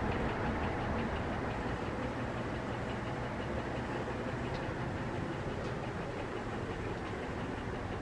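Banvil Orange Line 140 cm ceiling fan running at speed: a steady rush of air from the blades over the motor's hum, with a faint fast ticking.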